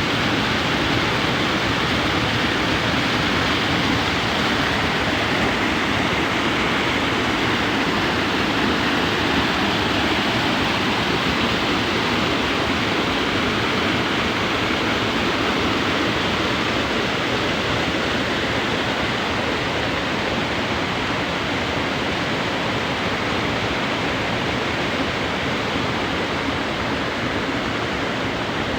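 Rushing water from a stream or river flowing over rocks, a steady even rush.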